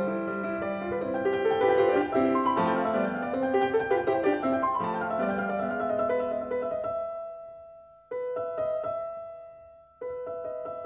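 Background piano music. A flowing passage fades away about two-thirds of the way in, then two sustained chords are struck, each left to die away.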